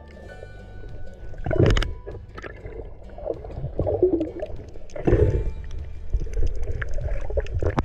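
Muffled water noise picked up underwater, with two louder rushes of water about two and five seconds in.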